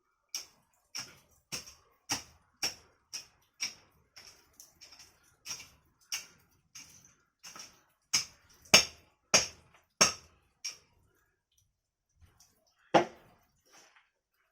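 A series of short, sharp clicks or taps, about two a second, fainter for a few seconds midway and louder again later. After a pause comes one louder knock near the end.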